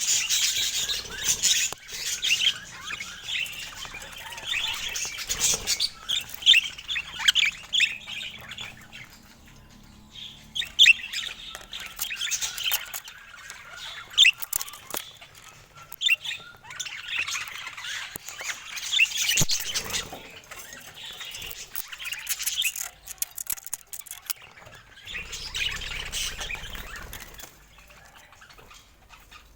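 Pet budgerigars chattering in bursts of rapid, high chirps and short squawks, with scattered sharp clicks and brief lulls between bursts.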